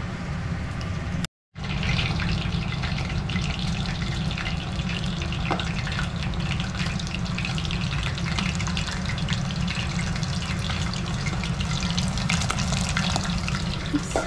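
Battered vegetable fritters frying in a pot of hot oil: a steady sizzle with dense crackling. It is broken by a moment of silence about a second in.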